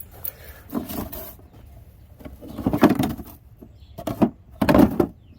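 Rummaging through a container: objects being shifted, slid and knocked about in a series of separate clattering bursts, the loudest near the middle and again toward the end.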